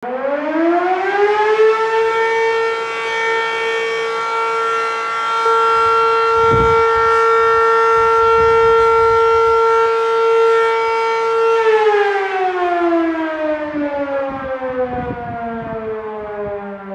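Fire station alarm siren winding up over about two seconds, holding one steady wail for about ten seconds, then slowly winding down. It is sounded for a fire call.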